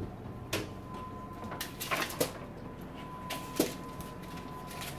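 A foil-lined metal cookie sheet being handled and slid into an oven, with the oven door opened: about half a dozen short clicks and clanks of metal spread over a few seconds.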